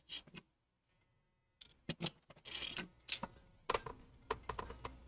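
Irregular light clicks and taps of a precision screwdriver being picked out of a tool kit and handled, sparse at first, then coming thicker in the second half.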